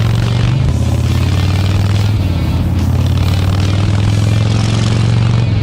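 Harley-Davidson Fat Boy V-twin engine rumbling steadily through a Jekill & Hyde valved exhaust, holding a low, even engine speed.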